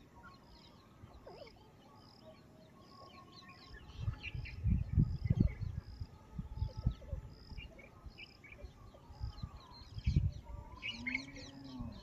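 Outdoor ambience with wild birds chirping and a high chirp repeating steadily about twice a second. Bouts of low rumbling thumps come and go, loudest a few seconds in and again near the end.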